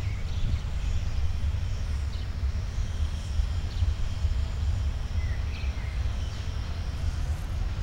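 Outdoor ambience dominated by a steady, uneven low rumble of wind on the microphone, with a few short bird chirps above it.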